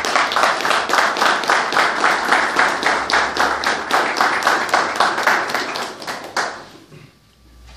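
A small group of people applauding with quick, even claps, dying away about six and a half seconds in.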